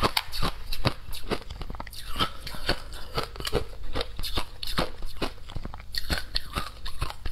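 Shaved ice with frozen passion fruit crunching as it is chewed and as a metal spoon digs into it: a quick, irregular run of crisp crunches, several a second.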